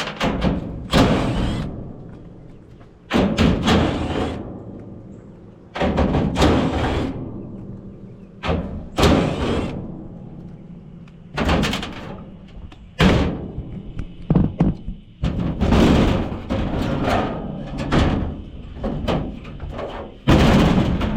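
Background music with a heavy hit every two to three seconds, each dying away before the next.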